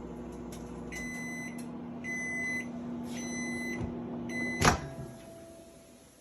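Microwave oven running with a steady hum, then sounding four long beeps at the end of the cook. A loud click comes about three-quarters of the way through, and the hum stops.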